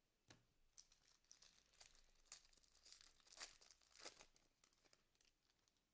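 Trading-card pack wrapper being torn open and crinkled, a run of faint crackles and rustles.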